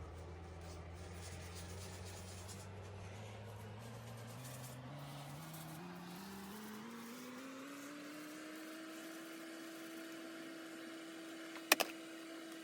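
A faint machine hum, likely an electric motor, rises steadily in pitch over several seconds and then holds at a steady higher pitch. A sharp double click comes near the end.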